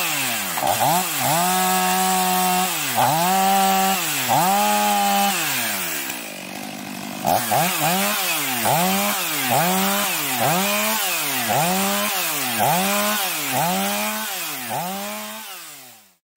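STIHL MS 500i fuel-injected two-stroke chainsaw cutting into a dry pine trunk, its engine pitch rising and falling over and over, about once a second and a little faster in the second half. The engine briefly runs quieter and lower about six seconds in, and the sound cuts off abruptly near the end.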